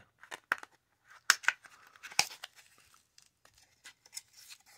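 A cardboard trading-card tuck box being torn open by hand: tearing and crinkling with several sharp snaps, the loudest about a second in and again just after two seconds.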